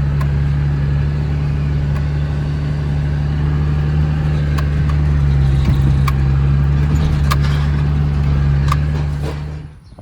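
A vehicle engine running steadily, with a few light clicks over it, then stopping near the end.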